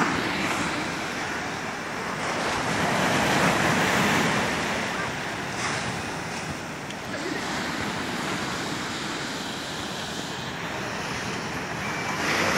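Sea surf breaking on the shore, a steady rush that swells about three seconds in and eases again, with wind buffeting the microphone.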